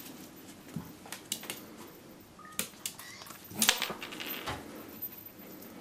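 Small dog's claws clicking and scrabbling on a ceramic tile floor as it moves about, in irregular sharp clicks with a louder flurry about three and a half seconds in.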